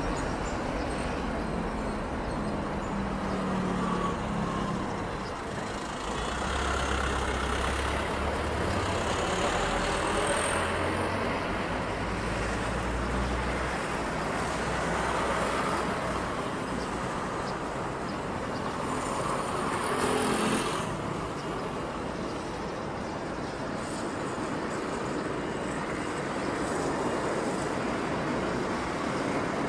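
Jet engines of an Airbus A330-300 at takeoff power, a steady roar through the takeoff roll, lift-off and climb-out, with a deep rumble strongest in the first half and a brief louder swell about twenty seconds in.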